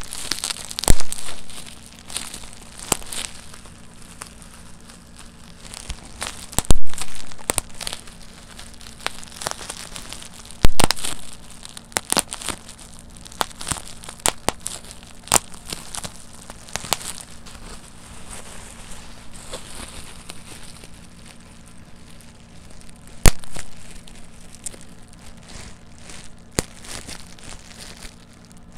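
Plastic bubble wrap being popped by hand: irregular sharp pops, a handful much louder than the rest, over the constant crinkling of the sheet being squeezed and handled.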